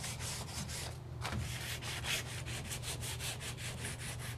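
100-grit sandpaper rubbed by hand over the primed wood of a door jamb in quick repeated back-and-forth strokes, lightly smoothing dented edges. A steady low hum runs underneath.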